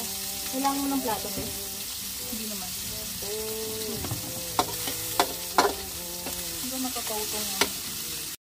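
Food sizzling as it cooks, a steady hiss, with four sharp clicks in the second half and faint voices behind. The sound cuts off abruptly just before the end.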